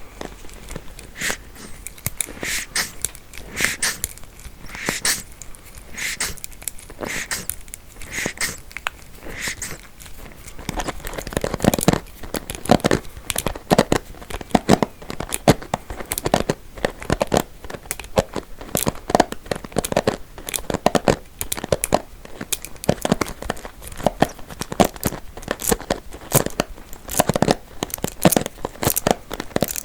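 Combs worked close to the microphone, their teeth scratched in crackly strokes: slow and evenly spaced at first, then much faster and denser from about eleven seconds in.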